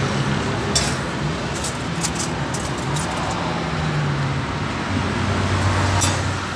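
Street traffic: steady road noise with low engine hums from passing and idling vehicles, and a few sharp clicks about a second in, around two seconds in, and near the end.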